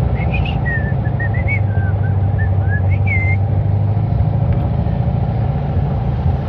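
Car engine running steadily with road noise, heard from inside the cabin while driving. For about the first three seconds a quick run of short high notes sounds over it.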